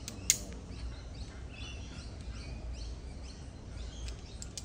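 A sharp click of climbing hardware being handled on the rope rig about a third of a second in, and a smaller click near the end. Through the middle a bird calls a run of short, evenly repeated high chirps over a steady low rumble.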